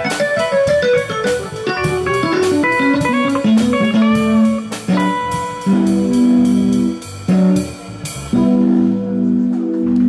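Small live band playing: an electric guitar plucks a fast descending run of single notes, then settles into sustained chords, over a steady ticking beat that stops about eight seconds in.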